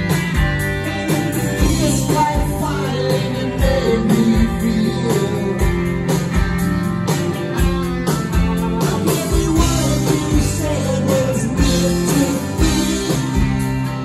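Live rock band playing loudly: distorted electric guitar chords over a steady drum beat.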